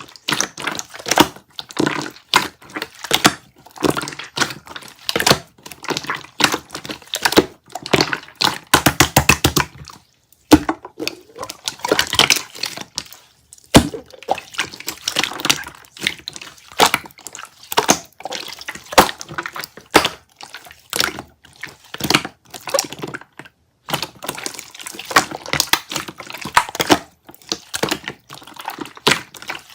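Brittle material being crunched and cracked in quick, irregular chisel-like taps and crackles, with a fast even run of clicks about nine seconds in and a brief pause just after.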